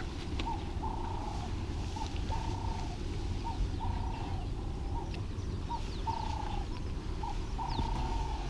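An animal calling again and again at one steady, fairly high pitch, in short notes and longer drawn-out ones, over a steady low rumble.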